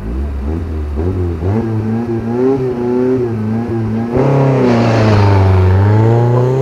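A car's engine revving hard on a dirt motorkhana course, the pitch climbing and dropping as the car works through the test. About four seconds in it passes close by and gets louder, with tyres spraying dirt and the engine note dipping and then climbing again.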